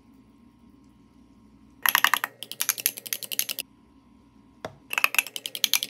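Metal spoon stirring sauce in a small glass bowl, clinking rapidly against the glass, about eight clinks a second, in two runs: one about two seconds in and one near the end, with a single clink between.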